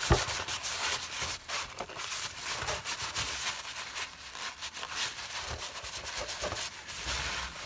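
Blue paper shop towel in a gloved hand wiping and rubbing around an oil filter housing cap: a steady run of short, scratchy rustling strokes.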